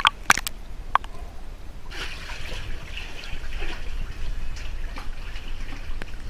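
Water sloshing and trickling around an action camera held at the surface of a cave pool, with a few sharp clicks about half a second and a second in, then a steady wash of water from about two seconds on.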